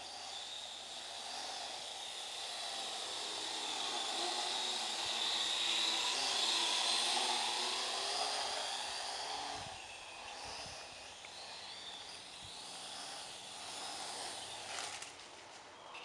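Parrot AR.Drone quadcopter flying, its four rotors giving a high, buzzing whine that wavers in pitch as it manoeuvres. It grows louder around the middle and eases off later.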